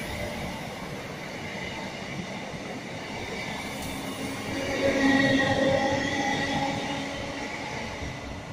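Electric multiple unit passing along the platform with steady rolling wheel-on-rail noise. A high whining squeal swells to its loudest about five seconds in, then fades as the train draws away.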